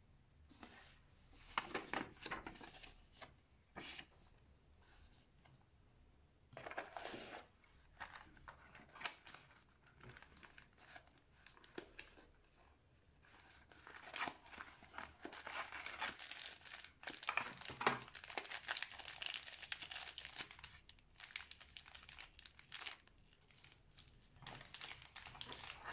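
Rustling and crinkling of packaging being handled: paper, a cardboard box sleeve sliding off its inner box, and small plastic accessory bags, in irregular bursts with short pauses between.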